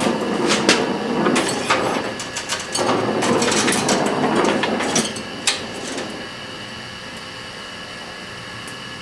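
Welding on the door's bushing: an uneven crackling, hissing noise with sharp clicks that stops about six seconds in, leaving a steady low hum.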